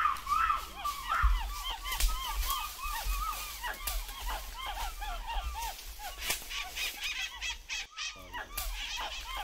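A chorus of forest birds calling together. Many short notes, each rising and falling in pitch, overlap several times a second, over a faint low rumble.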